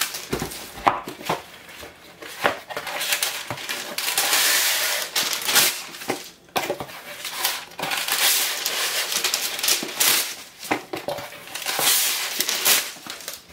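Baking paper rustling and crinkling as sheets are handled and cut to size, in several stretches, with a few light knocks on the bench.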